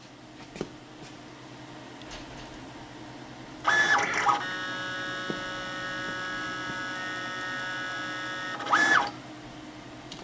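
Stepper motor drive of a CNC plasma table making one move: a whine of several tones that rises in pitch about three and a half seconds in, holds steady for about five seconds, then falls away near the end.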